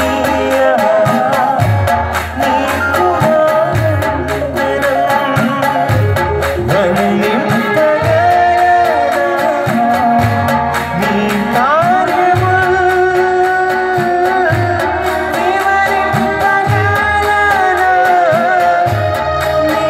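A man singing a Telugu Christian worship song into a microphone over instrumental accompaniment with a steady percussive beat.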